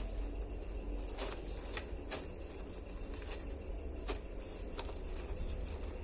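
Baby Asian water monitors feeding on a mouse: a handful of short, sharp clicks and scratches scattered through, over a steady low hum and a faint high whine.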